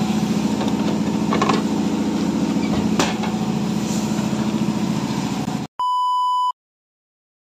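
Steady motor hum with a low drone and a couple of faint clicks. It cuts off abruptly and gives way to a short, steady test-tone beep, the tone that goes with a colour-bars test card, and then dead silence.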